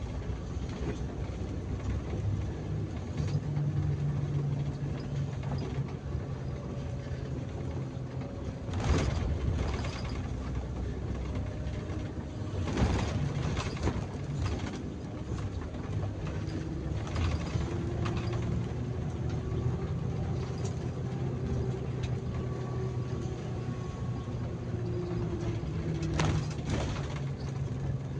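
Bus engine running under way with steady road noise inside the driver's cab, with a few sharp knocks or rattles about nine and thirteen seconds in and again near the end.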